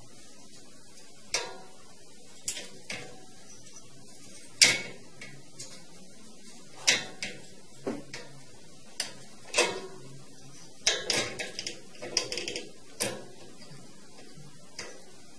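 Metal wire cage door and its slide-bolt latch clinking and rattling as a cat paws at the bolt. Single clanks come irregularly, a second or more apart, with the loudest about four and a half seconds in, then a quick flurry of rattles in the last third.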